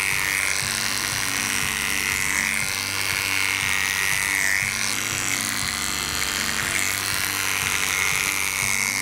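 Oster 3000i cordless dog clipper with a snap-on comb running in a steady high buzz as it clips a poodle's coat, its pitch dipping briefly a few times as the blade works through the hair. Background music plays underneath.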